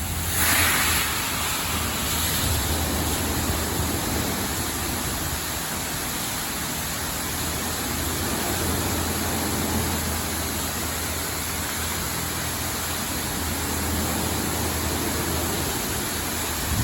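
Laserwash 4000 touchless car wash spraying high-pressure water over a car: a steady rushing hiss, surging briefly about half a second in, with a low steady hum of the machine underneath.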